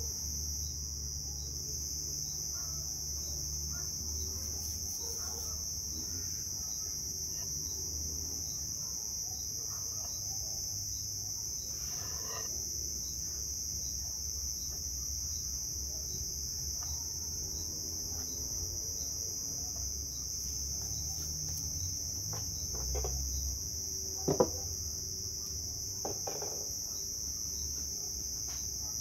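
Insects buzzing steadily at a high pitch, with a faint chirp repeating at an even pace and a low rumble underneath. A single sharp knock about 24 seconds in, as the wooden bench parts are handled.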